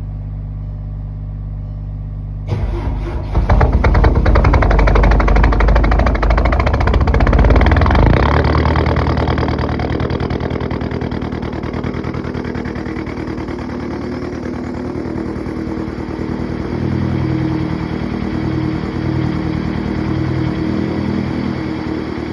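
Volkswagen Passat 2.0 TDI four-cylinder turbodiesel with a 3-inch straight-pipe exhaust, cold-started: a steady low hum, then the starter cranks briefly about two and a half seconds in and the engine catches. It runs loud for about five seconds, then settles into a steady idle.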